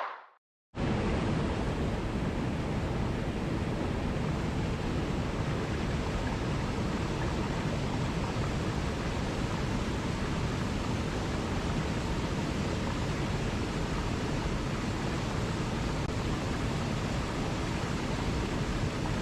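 Steady, even rush of running water, starting abruptly after a brief silence near the start.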